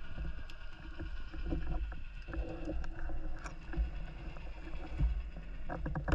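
Underwater ambience: a steady low rumble of moving water with a faint steady hum and scattered small clicks, a cluster of them near the end.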